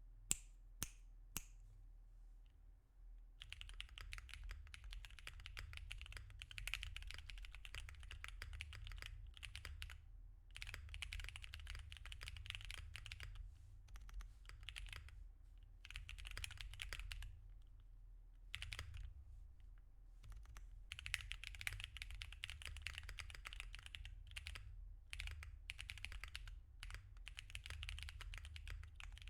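Typing on a mechanical keyboard fitted with tactile switches for a sound test: a few separate key clicks at first, then fast runs of clacking keystrokes broken by short pauses.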